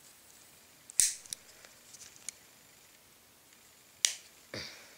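Metal clicks of a Leatherman multitool's fold-out implements snapping into place: a sharp click about a second in, a few light ticks, then a second sharp click near the end, followed at once by a softer knock.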